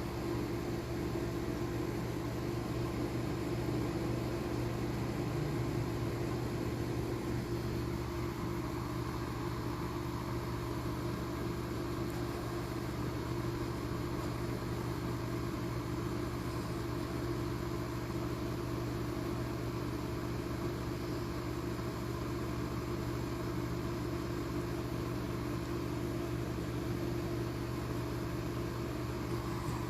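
Steady machine hum: a constant low drone under an even hiss, unchanging throughout.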